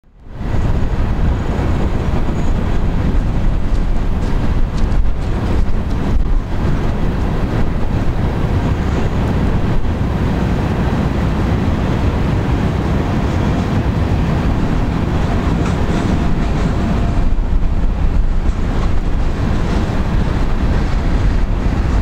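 Wind buffeting the microphone: a steady, loud low rumble.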